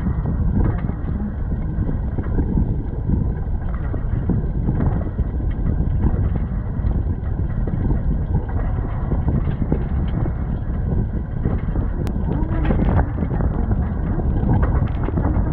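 Wind buffeting the microphone on the open top deck of a moving double-decker bus, a loud, steady low rumble over the bus's running and road noise.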